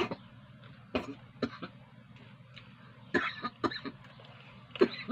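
A man biting into and chewing a homemade shawarma in lavash, close to the microphone: groups of short, sharp wet smacks every second or so.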